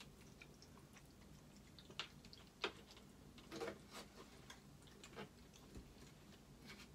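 Faint scattered clicks, about five in a few seconds, of a cat eating soft cat food from a small tub held by hand, with a spoon knocking against the tub.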